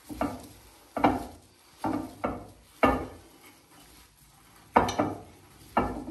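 Hands tossing and squeezing shredded raw vegetables, purple cabbage and carrot, in a ceramic bowl. The vegetables rustle in short bursts about once a second, with a pause of over a second midway.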